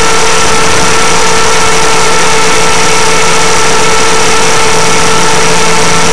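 Align T-Rex 500 electric RC helicopter heard from its onboard camera: a loud, steady motor whine held at one pitch over dense rushing noise from the rotors.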